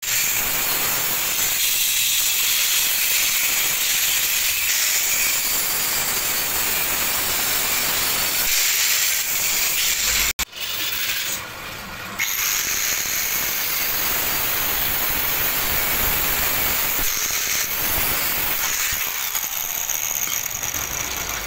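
Angle grinder grinding steel: a steady, loud hiss with a high whine over it, briefly breaking off about ten seconds in.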